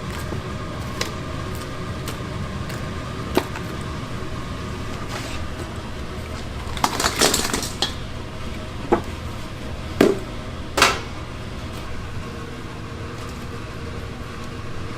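Kitchen clatter: metal utensils and containers clinking and knocking now and then, with a quick run of clatter about halfway through. A steady low hum lies under it.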